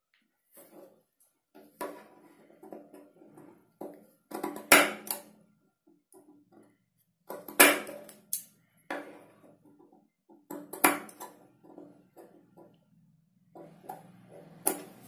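Cloth being cut and handled with tailoring scissors on a wooden table: rustling fabric broken by several sharp clicks of the scissors.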